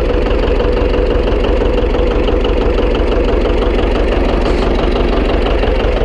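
An engine idling steadily, with an even low pulsing and a steady hum.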